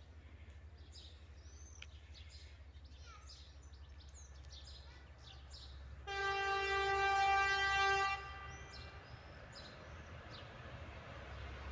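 Horn of a TEP70BS diesel locomotive sounding one steady blast of about two seconds, about six seconds in. The low rumble of the approaching train grows louder toward the end.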